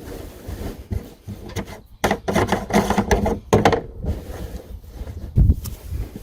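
Irregular knocks, scrapes and shuffling from someone moving and handling things under a pickup truck, with one heavy low thump about five seconds in.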